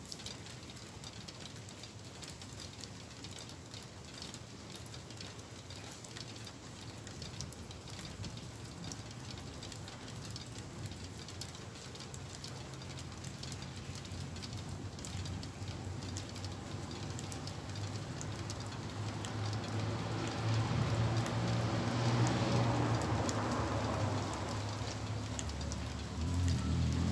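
Steady rain falling, its drops pattering as many small ticks. From about the middle a low rumble swells, peaks, eases, and rises again near the end.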